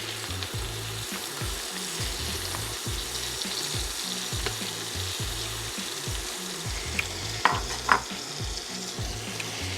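Shrimp frying in hot bacon fat in a pan: a steady sizzle. Two sharp clicks come about a second apart near the end.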